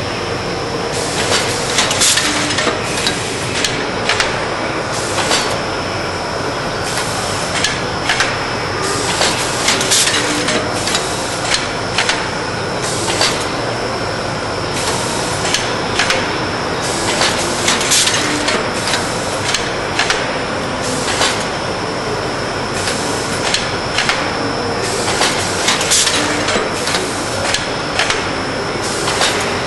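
Matrix vertical form-fill-seal bagging machine running a bag-in-bag filter-pack cycle: repeated sharp clacks and bursts of hiss about every two seconds over a steady high whine and mechanical clatter.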